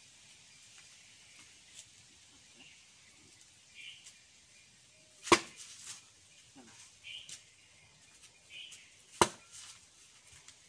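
Two sharp cracks of a bare fist striking a terracotta roof tile held up by hand, about four seconds apart.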